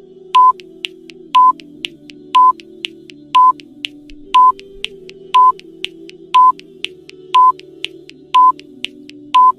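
Countdown timer sound effect: a short high beep about once a second, ten in all, with a fainter tick between beeps, over soft background music.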